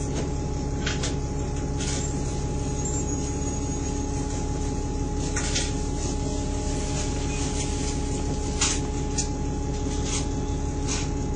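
Interior of a Stagecoach bus with its engine running: a steady drone with a constant whine. Short rattles and clicks from the bus's fittings come now and then, several in quick succession near the end.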